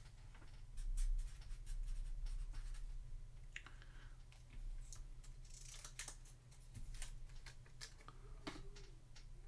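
Felt-tip marker scratching on a sticky note as a team name is written out, with scattered small clicks and rustles of paper. A steady low hum runs underneath.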